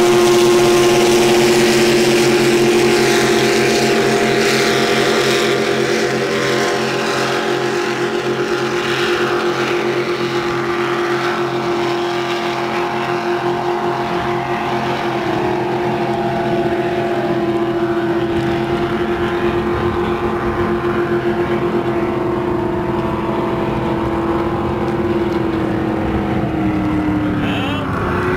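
Racing motorboats' engines running at speed, a steady droning note that eases a little after a few seconds and dips in pitch near the end.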